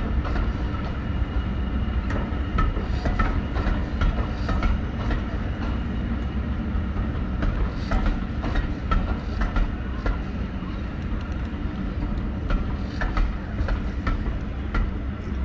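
Heritage diesel train running along the line: a steady low rumble with many short clicks and squeals over it.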